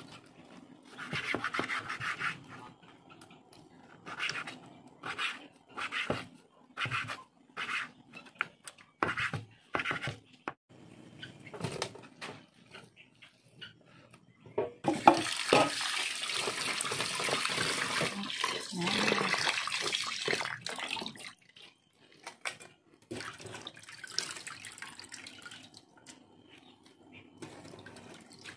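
Knife cutting beef tripe on a bamboo cutting board, a stroke about once a second. About halfway through, a kitchen tap runs into a metal bowl for several seconds. Near the end comes fainter splashing as the tripe is rinsed by hand in the water.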